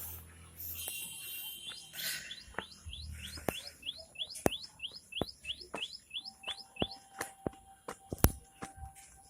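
A bird calling a long, regular series of short rising chirps, about three a second. Scattered sharp clicks sound through it, the loudest near the end.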